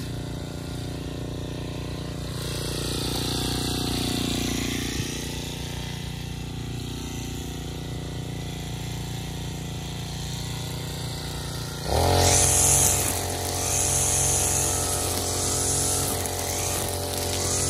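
Backpack brush cutter's small engine idling steadily, then revved up sharply about twelve seconds in. At full speed it cuts tall grass, its pitch and loudness dipping and recovering with the load.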